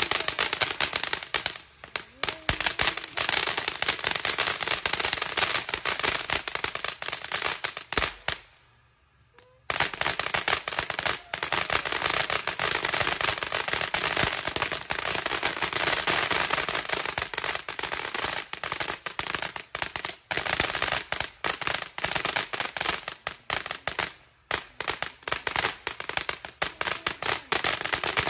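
Consumer fireworks going off in a dense, continuous rapid crackle of pops, with one short pause about eight seconds in before the popping starts again.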